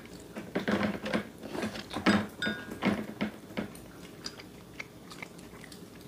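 Children chewing braised mackerel: a string of short, irregular wet mouth sounds for about three and a half seconds, then dying down.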